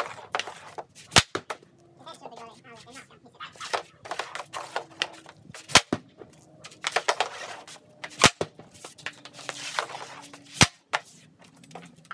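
Hockey stick shooting pucks off a concrete patio: four sharp cracks a couple of seconds apart, with the softer scrape of the stick blade and pucks on the concrete in between.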